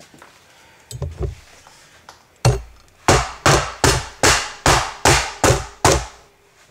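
The bottom of a heavy pan pounding toasted fennel seeds on a cutting board to crush them: a couple of light knocks, one heavy strike, then a steady run of eight strikes, about three a second.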